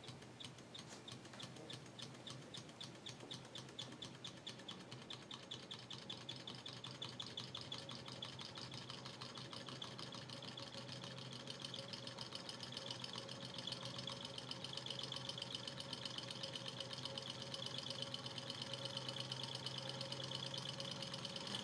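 Robart model Stirling hot-air engine, heated by an alcohol lamp, running after a hand start: a steady rhythmic clicking of its pistons and linkage that gradually speeds up and grows louder as it comes up to speed.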